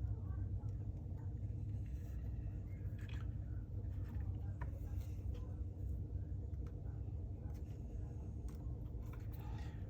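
Steady low hum with a few faint, short clicks of small transmission parts being handled as a seal is fitted by hand.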